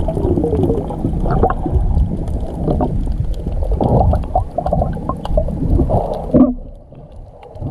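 Muffled underwater sound of snorkelling, picked up by a camera held under the water: bubbling and gurgling over a low rumble. It falls away to quieter water noise about six and a half seconds in.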